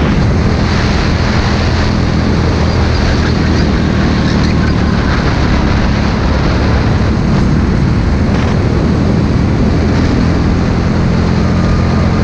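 Racing go-kart engine running at speed, heard onboard. It is a loud, steady drone with little change in pitch.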